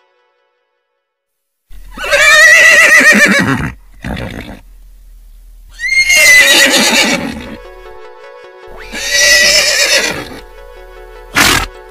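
Horse whinnying three times, each long call about a second and a half with a shaky, wavering pitch, after a couple of seconds of quiet.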